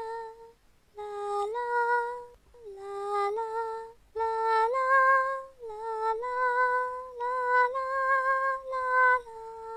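A woman singing a slow, wordless melody on "la la", unaccompanied, in short phrases of held notes with brief pauses between them.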